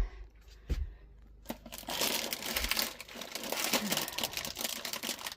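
Plastic snack packaging crinkling as it is handled, a dense crackle starting about a second and a half in, after two short knocks.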